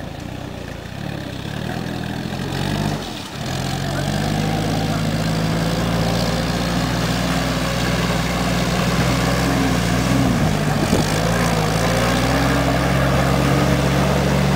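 World War II jeep's side-valve four-cylinder engine running, dipping briefly about three seconds in and then running steadier and louder.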